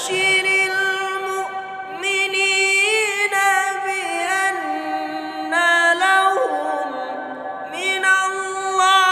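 A man reciting the Qur'an in the melodic tilawah style, holding long, high, ornamented notes in drawn-out phrases broken by short pauses for breath.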